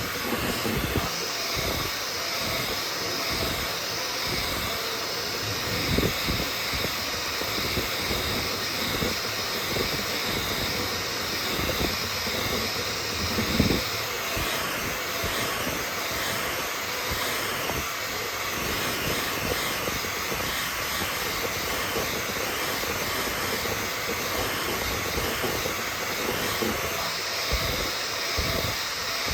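3D printer running: a steady whir and hiss of cooling fans, with a wavering high motor whine partway through and a few light knocks.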